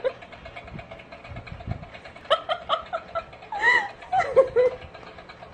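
A person laughing in short pitched bursts, first a quick run of 'ha's and then a couple of longer, rising-and-falling laughs.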